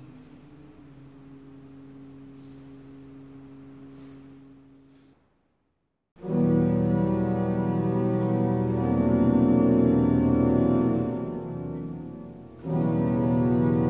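Pipe organ of St. Bavo Cathedral (Van Peteghem–Klais): a soft held chord fades out at the close of one movement, a second of silence follows, then the next movement begins at full organ. The sound thins out briefly about eleven seconds in before the full sound returns.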